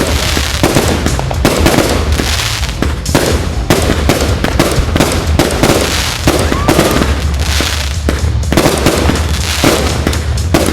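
Fireworks going off in quick succession: dense bangs and crackling with hardly a break.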